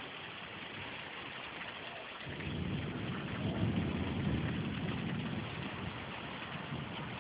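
Storm rain falling steadily, with a low rumble of thunder that swells about two seconds in and dies away over the next few seconds.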